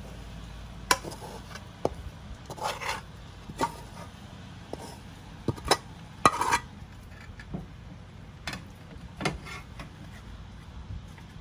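A utensil clinking and scraping against a pan or dishes in irregular knocks and short scrapes, over a faint steady hum. The food in the pan is being checked or stirred as it cooks.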